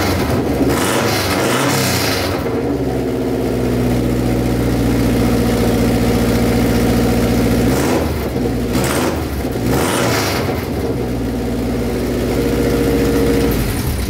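Turbocharged Subaru WRX flat-four engine running on its first start after the swap, with several short hissing bursts along the way, and it dies near the end.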